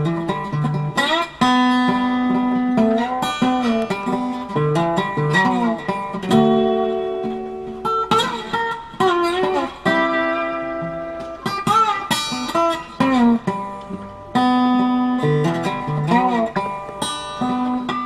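Background guitar music: plucked single notes and held notes, many of them bent up and down in pitch.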